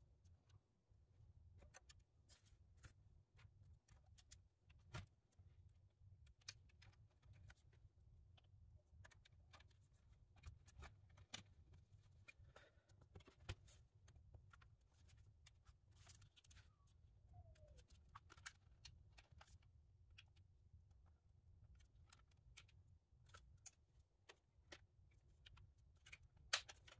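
Faint, scattered clicks and taps of plastic housing parts and a circuit board being handled and fitted together by hand, with one sharper click near the end.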